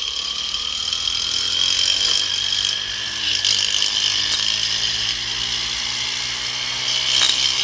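Small brushless DC motor spinning at high speed on a homemade driver, a steady high whine over a rushing noise, like a small power tool. Its speed is not being held in check by the driver.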